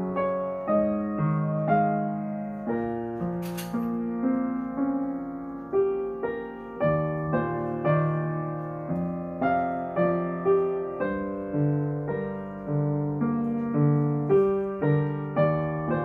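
Background piano music: a slow melody of single struck notes, each fading away before the next.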